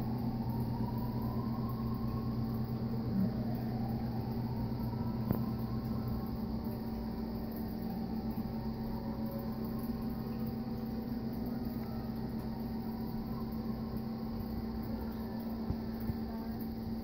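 Steady low mechanical hum with a few held tones. A faint whine rises in pitch twice over the first six seconds, and there is a single sharp click about five seconds in.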